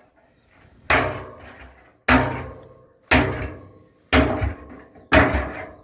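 Blows driving a machete through the sheet-steel top of a metal drum, five strikes about a second apart, the hollow drum ringing and fading after each one. This is the drum's lid being cut out to make a stove.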